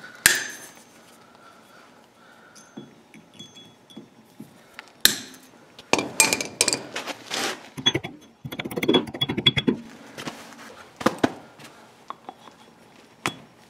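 Diagonal cutters snip the end off a steel cotter pin in a castle nut, a sharp click about a quarter second in, followed by scattered light metallic clinks and clicks as the pin and tools are handled.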